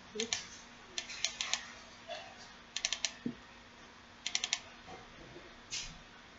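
Computer keyboard and mouse clicks: three quick bursts of about four keystrokes each, with a few single clicks between, over a faint steady hum.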